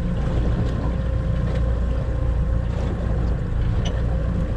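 Steady low rumble of wind on the microphone over the water, with a faint even hum from a boat motor. A few faint clicks sound now and then.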